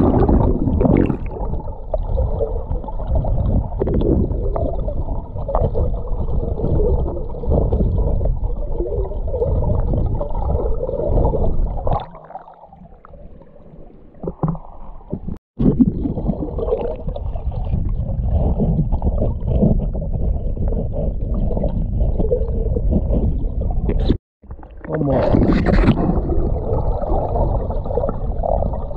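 Muffled rumbling and gurgling of creek water heard through a camera held underwater, with scattered knocks from gravel being disturbed. It drops to a much quieter hiss for a few seconds about twelve seconds in, while the camera is above the surface, and cuts out briefly twice.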